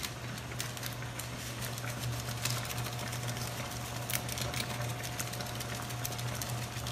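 Chicken adobo sauce simmering in a pan, crackling and popping with quick, irregular bubbles, over a steady low hum.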